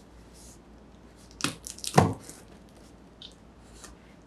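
Cardboard tripod box handled and shifted by hands in disposable gloves: a quick run of crackles and taps with a dull thump about two seconds in, then two light ticks.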